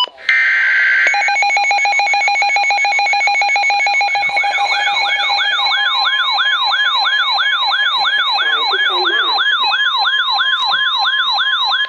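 Two NOAA weather radio receivers, an Eton ZoneGuard and a Midland WR-100, sounding their alarms for an incoming severe thunderstorm warning. A short burst of SAME data tones comes first, then a rapidly pulsed beeping tone. About four seconds in, a siren that sweeps upward nearly three times a second joins it.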